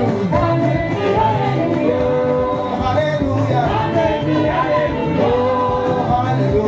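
Choir singing an upbeat song, with a lead singer on a microphone, over a steady bass beat.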